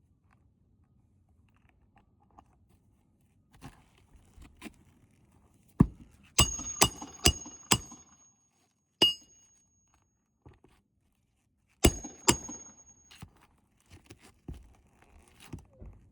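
Sharp knocks and clinks of hard objects striking, in quick groups of a few strikes. Some ring briefly with a high tone, like metal being tapped.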